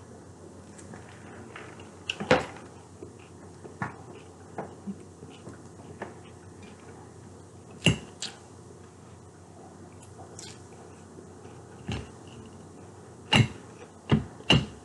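Eating a chicken Caesar salad: a fork clicks sharply against the dish at irregular moments between bites, with chewing.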